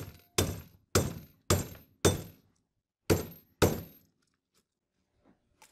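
A hammer tapping steel rivets into a rubber guide block, about seven sharp strikes with a bright metallic ring, roughly every half second with a short pause before the last two, stopping about four seconds in.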